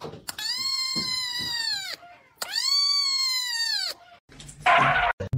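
Very young kitten meowing: two long, high-pitched meows, each about a second and a half, the pitch dropping at the end of each. A brief loud burst of noise follows near the end.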